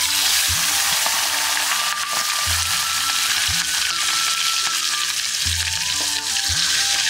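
Chicken pieces frying in hot oil, a loud, steady sizzle that starts abruptly as they go into the pot.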